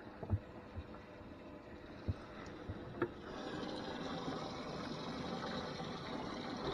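A few light knocks and thumps of handling in an aluminium fishing boat, then about three seconds in a steady rush of water starts as the boat's livewell pump fills the livewell.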